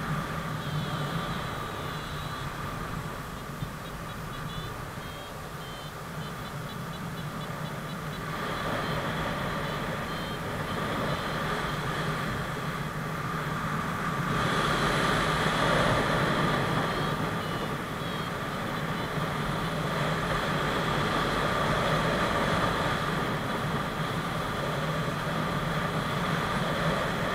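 Paragliding variometer beeping in rapid short pulses, the climb tone, over a rush of wind on the microphone that grows louder about halfway through.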